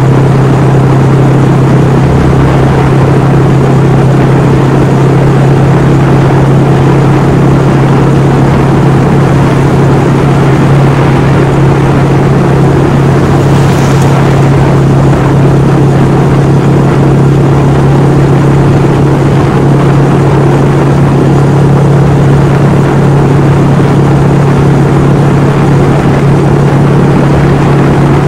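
Honda Monkey 125's air-cooled single-cylinder four-stroke engine running at a steady cruising speed, holding an even note without revving up or down, heard from on the bike.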